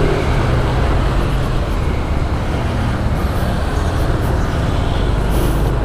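Yamaha scooter's engine running steadily while riding, mixed with road and traffic noise.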